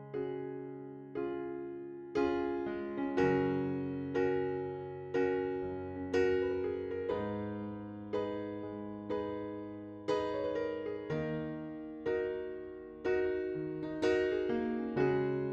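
Background electric piano music: soft chords struck about once a second, each note fading before the next.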